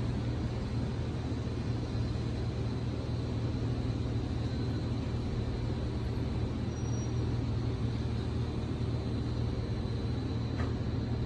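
Steady low hum with a constant noise bed and a faint high whine, unchanging throughout.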